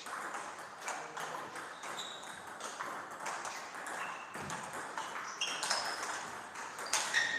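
Table tennis ball being played: a string of sharp, irregular clicks as the celluloid ball strikes bats and the table, some with a brief high ring.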